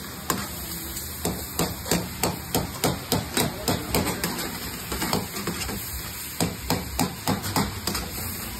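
Metal utensil striking a steel karahi wok in rapid, repeated clangs, about three a second, over a steady hiss.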